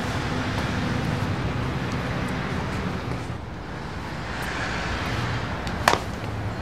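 Steady background hum and hiss, dipping briefly about halfway through, with a single sharp knock near the end.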